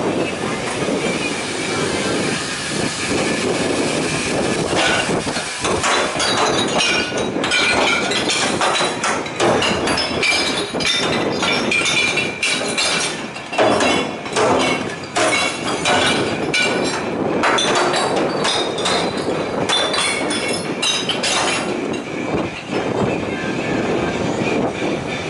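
Glass bottles and jars clattering and clinking, many quick irregular knocks, as they are sorted by hand into the compartments of a glass-collection truck.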